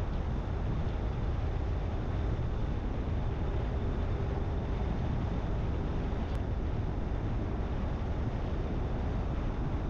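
Steady low rumble of a vehicle driving, with road and wind noise.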